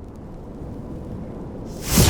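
Thunder: a low rumble building, then a sudden loud thunderclap cracking open near the end.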